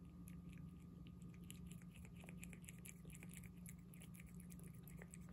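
A cat eating wet cat food from a plate, licking and chewing: faint, quick, irregular wet clicks, several a second, over a low steady hum.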